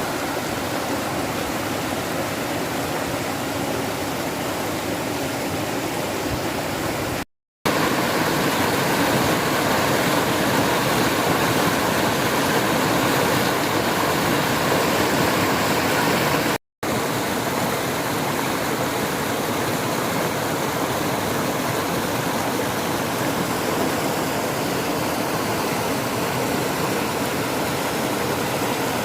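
Mountain stream water rushing over rocks, a steady rush with no pitch to it. It cuts out twice for a moment, the second stretch a little louder.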